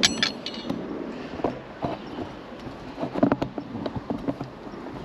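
A scatter of sharp clicks, clinks and knocks: handling noise of the recording phone being moved and set in place in the truck cab.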